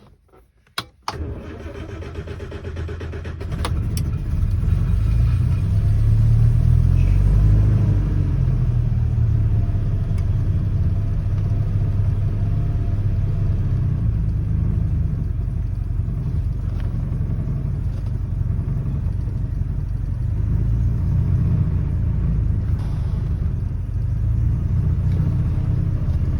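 Rover P4 80's four-cylinder petrol engine starting about a second in, then running steadily on a cold idle with a smooth, even rumble, its carburettor freshly tuned so it no longer runs rich with a high idle.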